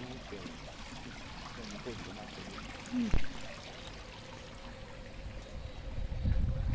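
Steady rushing noise, like running water, with faint voices in the first two seconds. A single sharp thump about three seconds in, and a low rumble building near the end.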